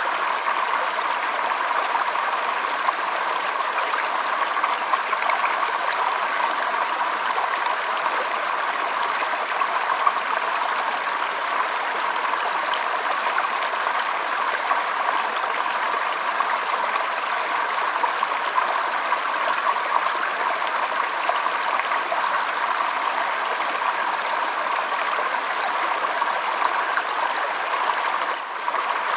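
Stream water flowing steadily, an even rushing and trickling with no pauses. The level drops briefly near the end.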